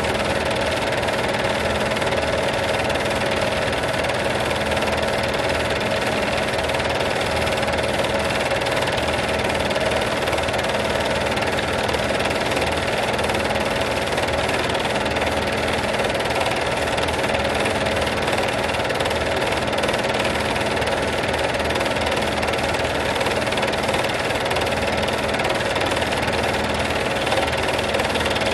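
Film projector running steadily: an even motor hum with the mechanical rattle of the film being pulled through.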